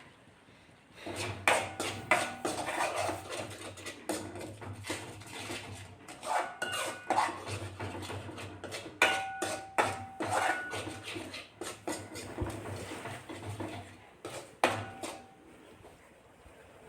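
Metal spoon stirring and scraping a thick paste around a kadai, with a run of quick clinks and scrapes, a few of which ring briefly. It starts about a second in and stops shortly before the end.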